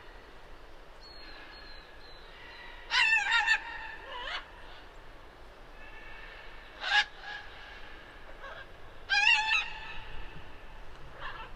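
A bird calls three times with a wavering, warbling pitch: a longer call about three seconds in, a short one near seven seconds, and another longer call about nine seconds in.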